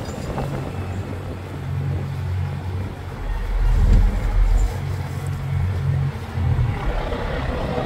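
Low, steady rumble of a tanker ship's machinery, swelling and easing a little in loudness.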